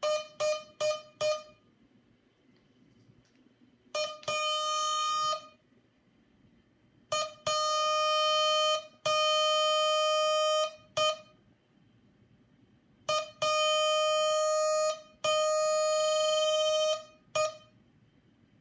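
Morse code tone of one steady pitch, keyed slowly by hand with very long dahs: four dits, then dit-dah, then dit-dah-dah-dit twice, spelling H, A, P, P.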